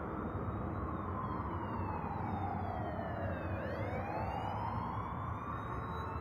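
Police siren in wail mode: one slow sweep down in pitch to its lowest about three and a half seconds in, then a slow rise again, over a steady rushing noise.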